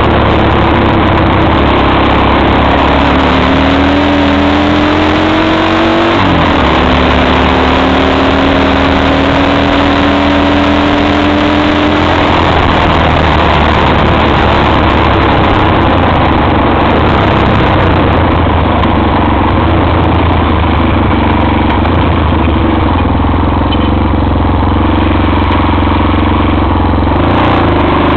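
Shineray XY250STXE quad engine running under way over a loud steady rush of noise. Its pitch climbs for a few seconds, drops abruptly about six seconds in, then climbs slowly again.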